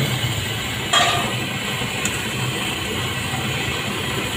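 Oil sizzling steadily as roti goreng dough sticks deep-fry in a large steel wok, with one sharp metallic clink about a second in as the wire skimmer strikes the wok. A low steady hum runs underneath.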